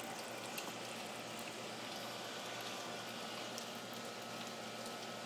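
Steady rain falling on a wooden deck: an even hiss with many small drop ticks scattered through it.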